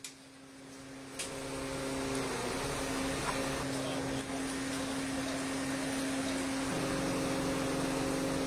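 Steady engine hum from a fire-rescue aerial platform truck, its pitch dipping briefly about two seconds in and shifting again near the end. A single sharp click about a second in.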